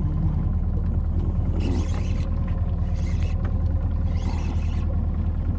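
A boat's engine running steadily at idle, a constant low hum, with a few brief higher hissing sounds over it.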